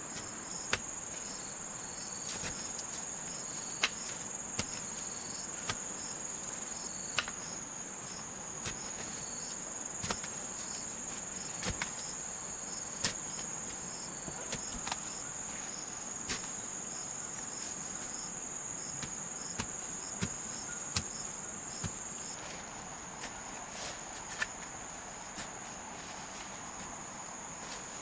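A long-handled hoe chopping into soil and roots, giving irregular sharp knocks every second or two. Under it, a steady high insect chorus of crickets.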